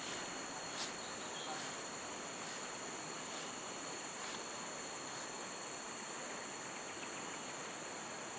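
Steady, high-pitched chorus of insects droning, with a few faint clicks over a soft even hiss.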